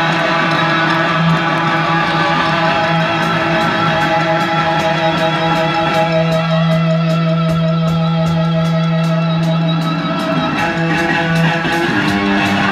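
Rock band playing live, with guitar to the fore, heard from far back in the audience. A long held note sounds in the middle.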